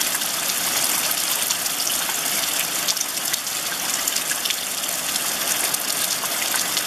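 Steady rain falling on wet asphalt and puddles: an even hiss dotted with many small drop splashes.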